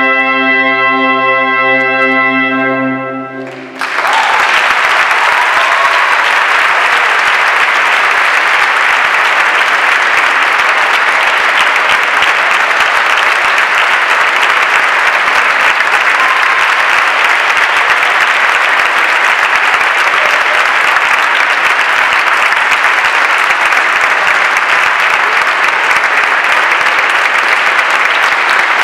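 A wind band holds the last chord of a piece on brass, trumpets and trombones prominent, and it cuts off about four seconds in. Loud, steady audience applause follows immediately and continues.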